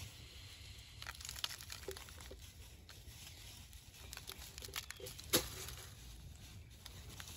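Grey granular Tannerite mix being poured from one plastic container into another: a faint rustling hiss with scattered light clicks, and one sharper click a little past halfway.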